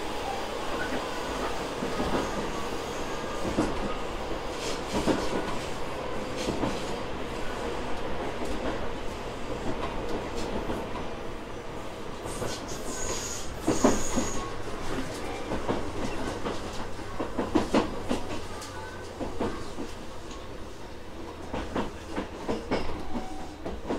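Tobu 6050 series electric train running, heard inside the car: a steady rumble with wheels clacking over rail joints. A brief high squeal comes about 13 seconds in, and there are louder knocks around 14 and 18 seconds.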